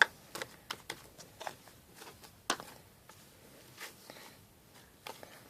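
Homemade slime being squeezed and stretched by hand, giving off irregular small clicks and pops, with one louder snap about two and a half seconds in.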